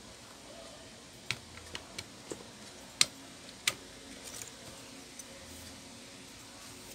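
Sharp plastic clicks and taps from cables and connectors being unplugged and handled on a desktop motherboard. There are about half a dozen clicks between one and four seconds in, the loudest about three seconds in, followed by a few faint ticks.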